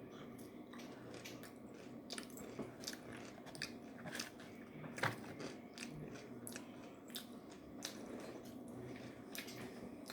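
A person chewing and biting into food close to the microphone: irregular crunchy clicks, the loudest crunch about five seconds in.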